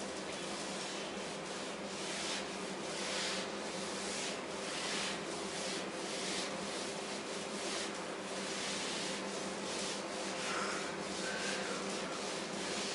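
A whiteboard duster wiping marker off a whiteboard in repeated sweeps. Each sweep is a soft rubbing hiss, roughly one a second.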